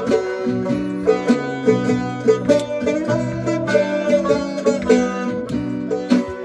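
Instrumental passage of an Uzbek folk tune played live on plucked string instruments, with a regular beat of sharp strikes.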